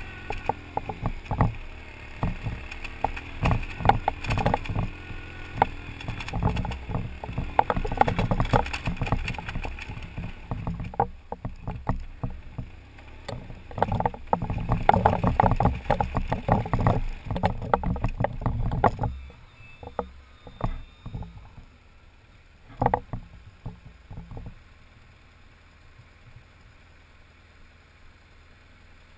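BMW adventure motorcycle ridden over a rocky gravel track: the engine runs under a stream of rattles and knocks as the bike bounces over loose stones. About two-thirds of the way through the sound drops away to a faint low hiss with an occasional knock.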